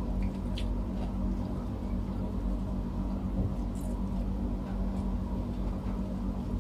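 A steady low hum fills the room, with a few faint clicks and mouth sounds from two people eating rice and stew with their hands.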